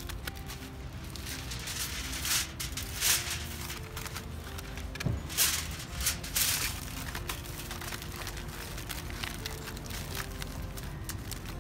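Aluminium foil crinkling and rustling as it is wrapped and pressed around a whole chicken, with a few louder crumpling bursts between about two and seven seconds in.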